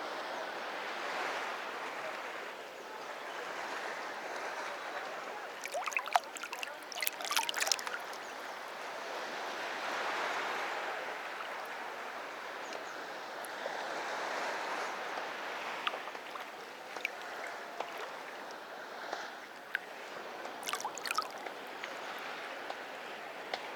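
Sea waves breaking on the beach, a rushing wash that swells and falls back every few seconds. Two short flurries of sharp clicks cut through it, about a third of the way in and again near the end.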